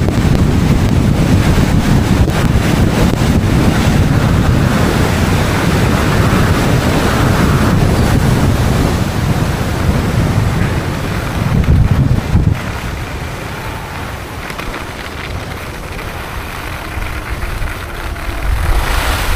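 Wind buffeting a helmet-mounted camera's microphone on a fast ski run, with the hiss of skis sliding and carving on snow. The rush drops off noticeably about twelve seconds in and builds again near the end.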